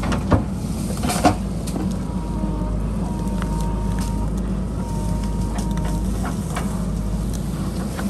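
JCB backhoe loader's diesel engine running under load as the backhoe bucket digs into soil and roots, with two sharp knocks in the first second and a half and smaller scraping clicks. A thin steady whine sounds through the middle.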